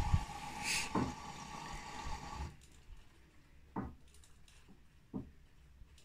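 Bosch front-loading washing machine in its wash cycle: the drum motor hums with a steady whine over wet laundry sloshing, and stops about two and a half seconds in. After that come soft thumps of wet laundry dropping in the drum, about every second and a half.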